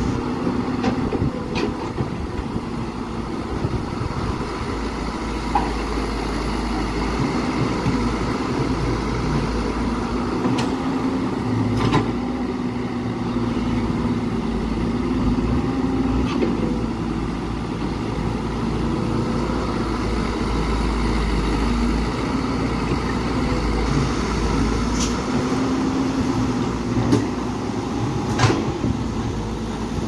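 Caterpillar E120B hydraulic excavator's diesel engine running steadily as it digs, its note rising and falling a little, with a few sharp knocks scattered through.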